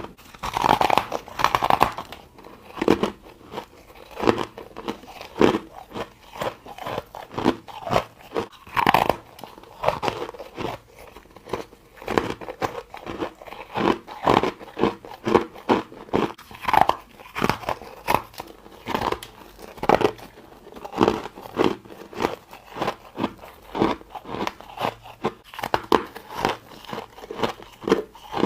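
Ice being bitten and chewed: a steady run of sharp crunches and cracks, with a few heavier bites between them.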